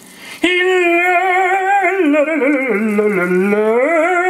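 A single voice singing one long sustained note with a wide vibrato. It starts about half a second in, slides down in pitch around the middle, and climbs back up near the end.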